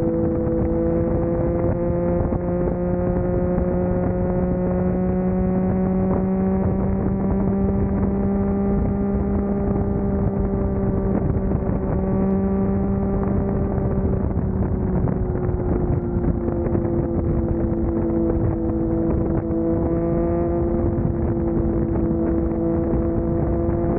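Vehicle engine running at a steady cruise, its pitch easing down slightly about fifteen seconds in and then holding again, over a steady rush of road and wind noise.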